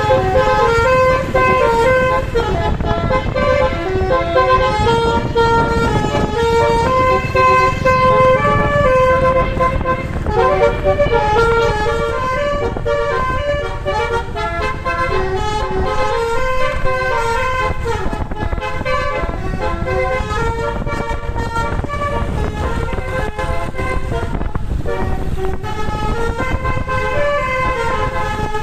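Bus's Basuri telolet multi-tone horn playing a long, quick melody of stepped notes, over the low noise of the vehicle on the road.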